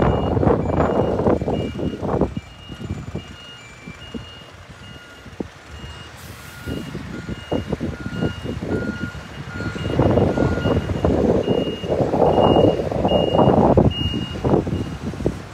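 Vehicle reversing alarms beeping over and over at an even pace, more than one beeper at different pitches. Heavy-vehicle engine and road noise swells up loudest near the start and again towards the end.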